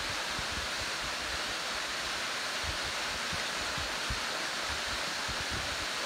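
Waterfall spilling in thin streams down a rock face onto rocks and a shallow pool: a steady, even hiss of falling water. Wind buffets the microphone in short low rumbles now and then.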